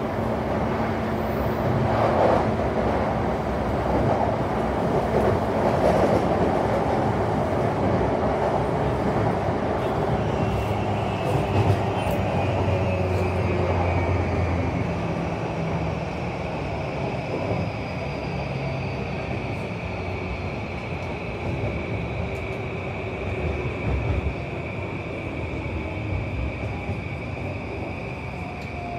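Running noise inside a JR E235 series electric train's motor car: wheels on rail and body rumble. From about ten seconds in, a motor whine slowly falls in pitch as the train slows into a station.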